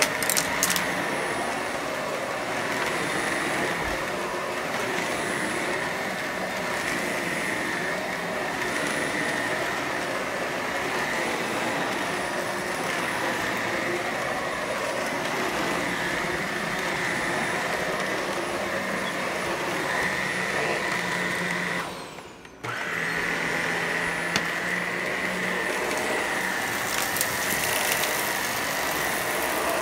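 Shark Professional Lift-Away upright vacuum cleaner running steadily with a high motor whine while it picks up dry debris, with a few sharp clicks near the start and near the end. About two-thirds of the way through the sound drops out for about half a second, then comes straight back.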